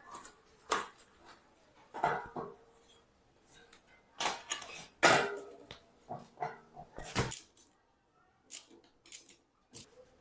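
Tools and metal bicycle parts being handled during a workshop restoration: irregular clinks and knocks, with a longer scrape about four to five and a half seconds in, and fewer, lighter clicks near the end.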